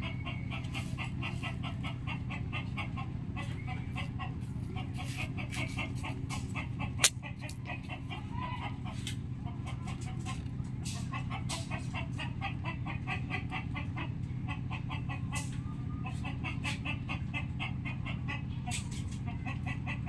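Chickens clucking in quick runs of short repeated calls over a steady low hum, with a single sharp click about seven seconds in.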